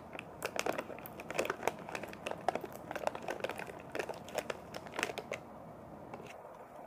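Clear plastic lid of a popcorn tub being pried and peeled open by hand: a run of crackles and sharp clicks that dies away about five and a half seconds in.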